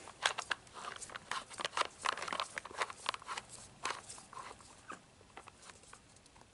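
Irregular plastic clicks and taps from a CAT Machine Maker toy dump truck being handled and a plastic screw being turned into it, dense for the first few seconds and sparser toward the end.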